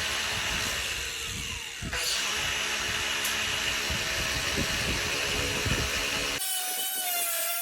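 A power tool cutting flat steel: a steady, harsh cutting noise over a motor hum, which cuts off abruptly about six seconds in.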